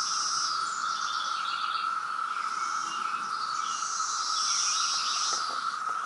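Chorus of periodical cicadas, a steady, unbroken drone, with birds calling higher up above it.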